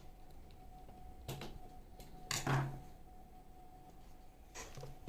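Handling sounds of a small plastic pinpointer being worked on by hand: a few sharp clicks, then a louder knock about halfway through and another click near the end. A faint steady whine runs underneath.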